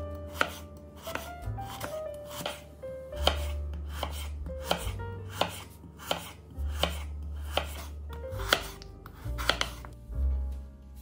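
A kitchen knife slicing a peeled raw potato on a bamboo cutting board, each cut ending in a crisp knock of the blade on the wood, about two a second. Background music with a bass line and piano notes plays under it.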